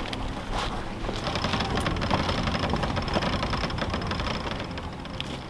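Sailboat winch ratcheting with fast, even clicks as the main halyard is wound in under the weight of a hanging outboard motor.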